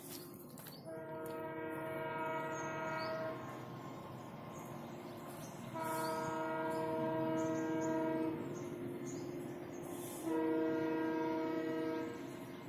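ALCO WDG-3A diesel locomotive's horn sounding three long blasts, each about two to two and a half seconds, a few seconds apart.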